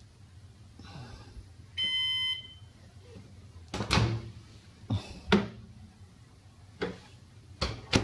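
Hotpoint over-the-range microwave beeps once from its control panel, then its door is opened and shut several times with sharp latch clunks. The unit responds again after a blown internal fuse.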